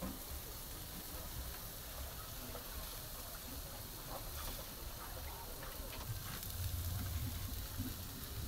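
Beef pieces sizzling faintly on a hot charcoal grill grate, with a few light clicks as the meat is handled.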